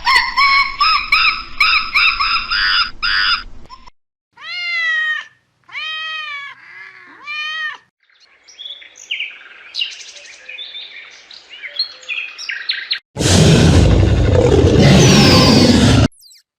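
A series of different animal calls, one after another. High rapid chirping runs for the first four seconds, then come three separate rising-and-falling calls and more scattered chirps. About thirteen seconds in, a loud rough call lasts about three seconds and then cuts off.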